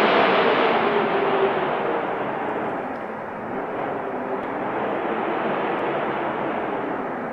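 Wind blowing steadily in gusts, a dense rushing noise that is stronger for the first second or so and eases about three seconds in.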